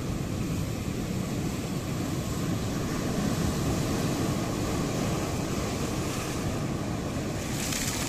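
Ocean waves breaking on the shore: a continuous low surf rush that swells a little in the middle, with a brief bright hiss near the end.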